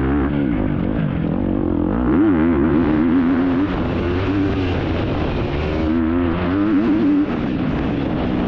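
Off-road racing motorcycle engine heard from on board, its pitch rising and falling constantly with the throttle, with brief louder surges of revving.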